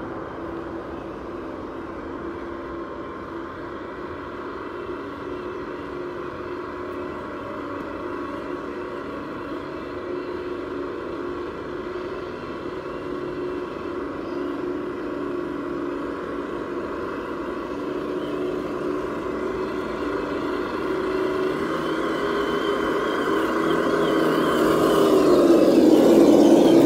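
Electric motor and geared drivetrain of a Traxxas TRX-4 Defender RC crawler truck whining steadily as it crawls over rocks, growing louder as it comes closer and loudest near the end.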